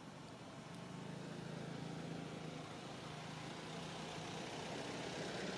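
An engine running steadily, a low even hum that grows louder about a second in and then holds.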